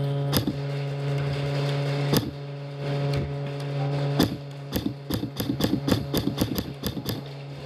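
Airsoft guns firing: single sharp shots about two seconds apart, then a fast string of shots at about five a second near the end. Under them runs a steady low hum.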